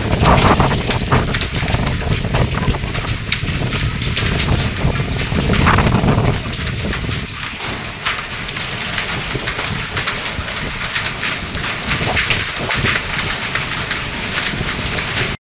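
Strong storm wind gusting with rain, the wind buffeting the microphone in a deep rumble for about the first six seconds, then settling into a steadier rushing with fine pattering.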